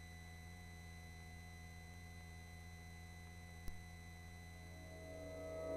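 Faint steady electrical hum and whine from a helicopter intercom audio feed, with a single click about three and a half seconds in. Music begins to fade in near the end.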